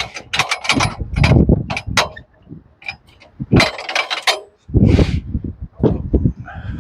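Irregular knocks, clunks and clinks in several clusters, with quiet gaps between: boards and sawmill hardware being handled by hand, with no engine or saw running.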